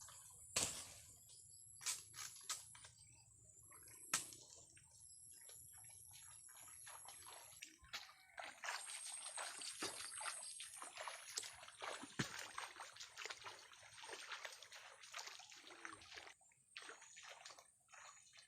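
Flood water sloshing and splashing, as of a person wading through a flooded rice paddy. A few separate splashes come in the first seconds, then dense, continuous sloshing from about eight seconds in until shortly before the end.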